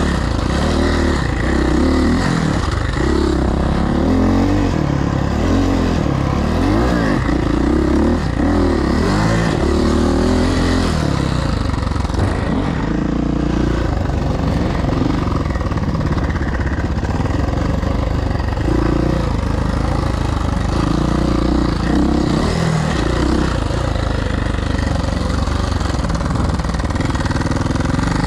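Suzuki motocross bike engine running hard while riding, its pitch rising and falling over and over as the throttle is opened and shut, over a heavy low rumble.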